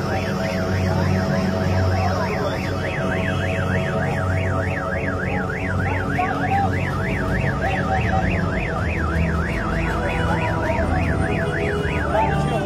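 Car alarm sounding a fast up-and-down warble, about four sweeps a second, which stops near the end, over a low rumble.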